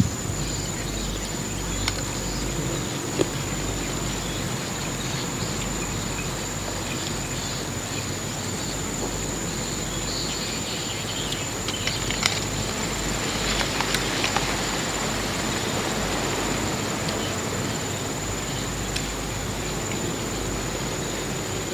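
Steady high-pitched insect chorus over an even outdoor hiss, with a few soft clicks scattered through it.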